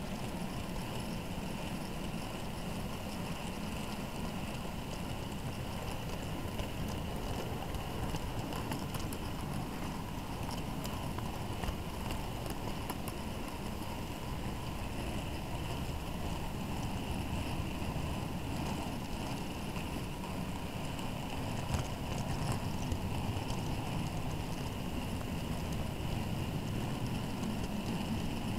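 Steady rumble and rattle of model railway wagons rolling along the track, picked up by a camera riding on the train, with a few faint clicks.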